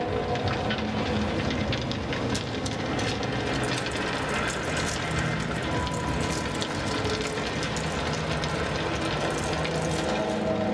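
Soundtrack of the building light-projection show over outdoor loudspeakers: a dense rushing, crackling noise full of scattered clicks. Droning tones fade out at the start and come back near the end.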